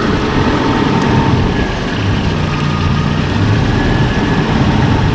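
Suzuki Vitara engine idling steadily with the air conditioning switched on. The newly fitted A/C condenser fan is not spinning and the compressor is not engaging.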